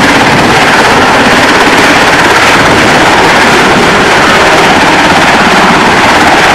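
U.S. Coast Guard MH-60 Jayhawk helicopter flying low and close, its main rotor chopping loudly and steadily over the turbine noise.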